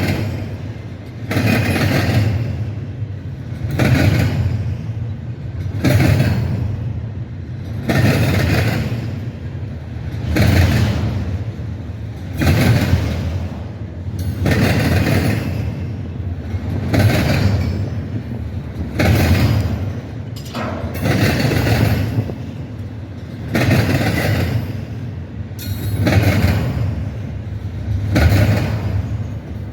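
A train rolling past, its cars going by in a steady rhythmic swell about every two seconds.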